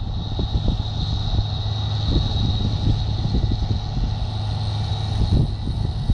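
New Holland CX740 combine harvester running under load while harvesting barley: a steady engine drone with a steady high whine above it and irregular low rumbling.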